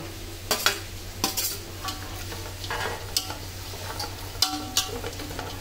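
Chopped vegetables with freshly added capsicum stir-frying in a pan: a steady sizzle, with a spatula scraping and knocking against the pan about once a second.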